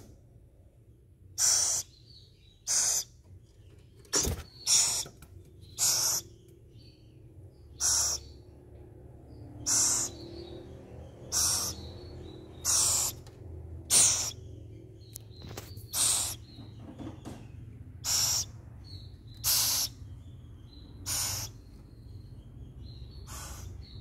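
An owl chick giving a harsh, hissing rasp again and again, each call brief, about one every one and a half seconds. There is a single sharp knock about four seconds in.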